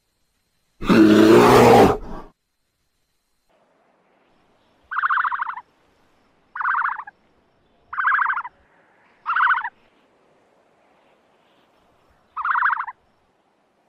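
A brown bear's loud, harsh roar about a second in, lasting about a second and a half. It is followed by five short, rasping animal calls, each about half a second long, spaced one to three seconds apart.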